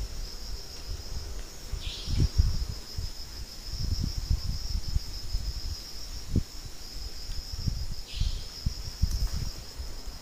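Crickets trilling steadily at night, with gusts of wind rumbling on the microphone; two short falling squeaks about two seconds and eight seconds in.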